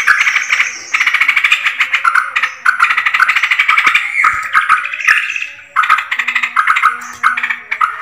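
A flock of yellow-vented bulbuls (trucukan) chattering loudly, a dense run of quick bubbling notes with a few short pauses: the kind of calling used as a sound lure to draw more trucukan in.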